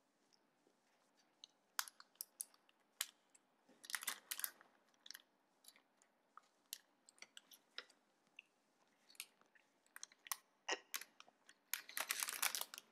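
A person chewing crunchy food close to the microphone, with scattered sharp crunches. Near the end a plastic bag crinkles as it is handled.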